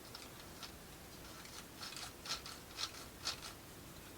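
Waxed plywood parts of a UGEARS wooden model rubbing and scraping against each other as they are worked back and forth to spread the wax. A few short, scratchy strokes, about two a second, come mostly in the second half.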